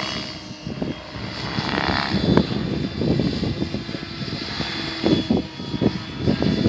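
GAUI X7 RC helicopter flying at a distance, its motor and rotors giving a steady whine, under an irregular gusting rumble of wind on the microphone.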